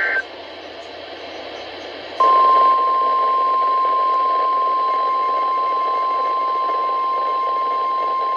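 NOAA Weather Radio broadcast: the tail of a SAME data burst, then about two seconds of radio hiss, then the loud, steady single-pitched 1050 Hz warning alarm tone starting about two seconds in, which signals that a new warning is about to be read.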